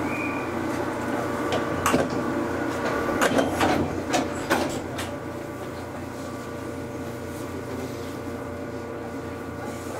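Onboard running sound of an Ainokaze Toyama Railway 413 series electric train: a steady hum with several constant tones. A run of sharp clacks from the wheels over rail joints comes between about two and five seconds in, then the running goes on a little quieter.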